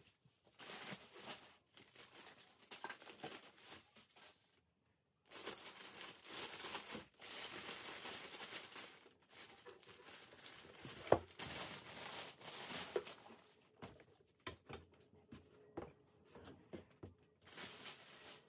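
Clear plastic packaging bag crinkling and rustling in irregular bursts as it is pulled off a Brother embroidery machine packed in a cardboard box, with a few sharp clicks, the loudest about eleven seconds in.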